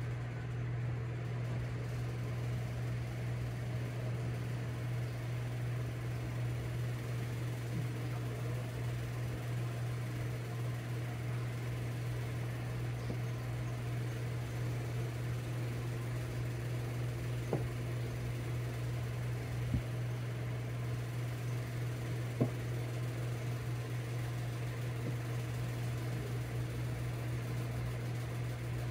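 Steady low mechanical hum throughout, with three faint light taps in the second half as a kitten paws at a plastic hair straightener.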